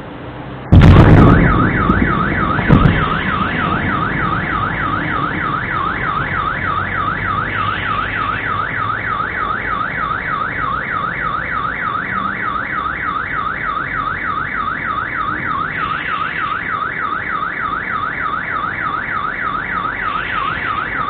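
Sonic boom from a fighter jet breaking the sound barrier: a sudden deep bang about a second in, then a second smaller thump about two seconds later. The shock sets off a car alarm, which then warbles rapidly up and down without a break.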